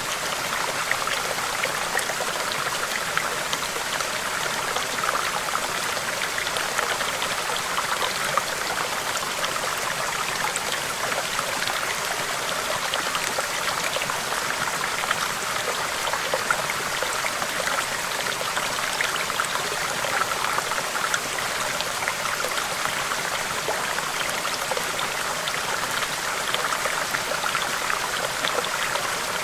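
Small stream babbling over rocks: a steady, unbroken rush of running water with fine splashes.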